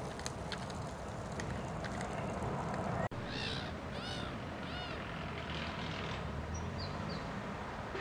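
Steady low outdoor rumble with scattered light clicks of pram wheels and footsteps on a gravel path; after a sudden cut about three seconds in, a small songbird gives three short calls, each rising and falling in pitch, then a few faint high notes near the end.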